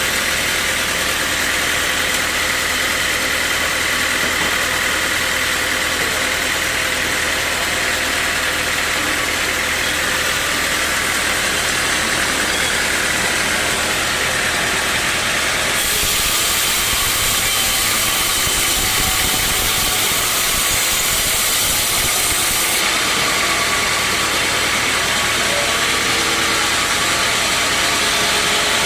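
Sawmill machinery running steadily, with an even motor hum throughout. About halfway through, a bright hiss joins for about seven seconds, then drops away.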